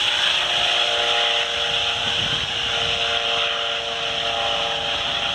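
Helicopter flying away after take-off: a steady high-pitched whine with a few held tones over rotor noise, slowly fading as it gets farther off.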